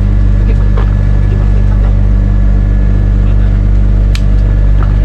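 Engine aboard a fishing boat running steadily with an even low hum. A single sharp click about four seconds in.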